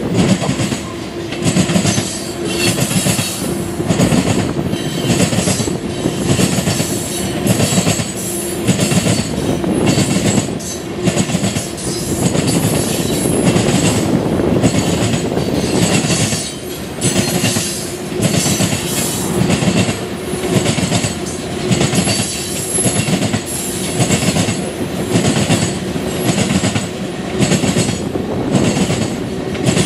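Freight train cars rolling past, their wheels clicking over rail joints in a steady, repeating clickety-clack under a continuous rolling rumble.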